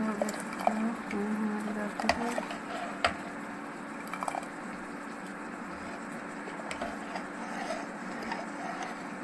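Metal ladle stirring and scooping thick rajma dal in an aluminium pot, giving a few sharp clinks against the pot, mostly in the first half, over a steady low hum.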